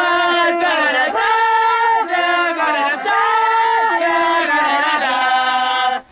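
A group of boys and a young man singing together in long held notes, cut off suddenly near the end.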